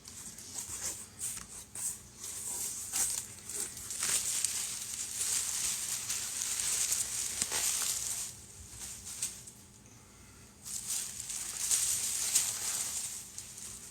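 Packaging being unwrapped by hand: plastic and paper crinkling and tearing in two long spells with a short lull between them.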